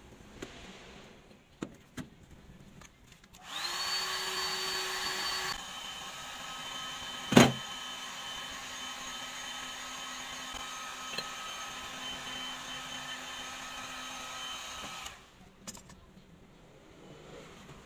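Electric heat gun switched on, its fan rising briefly in pitch as it starts, running louder for about two seconds and then steadily at a lower level while it softens a flattened strip of PVC pipe for bending. It switches off about fifteen seconds in. A sharp knock comes about seven seconds in, with a few light handling clicks before the gun starts.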